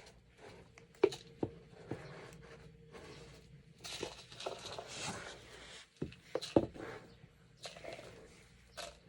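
Cat litter being scooped: irregular taps and knocks, with a stretch of gritty scraping and rustling about halfway through.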